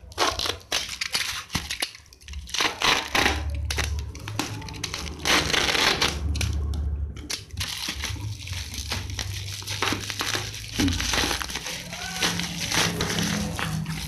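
Plastic parcel wrapping, black bubble wrap and a shiny plastic bag, crinkling and crackling in irregular bursts as it is pulled open by hand.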